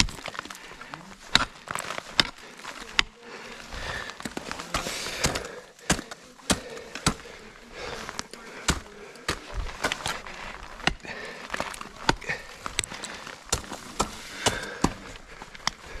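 Ice axe picks and crampon front points striking and biting into the hard ice of a frozen waterfall: sharp, irregular impacts about one or two a second, some much louder than others.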